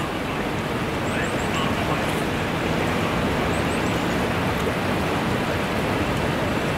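Steady rushing outdoor background noise, with faint short high chirps in little runs of three or four a few times.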